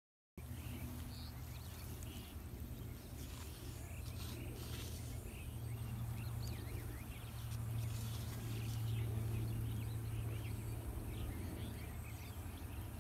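Outdoor ambience: small birds chirping again and again over a steady low hum. The sound drops out completely for a moment right at the start.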